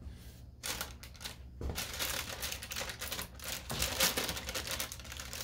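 Parchment paper crinkling and rustling in a stream of small crackles as hands pull at and fold it.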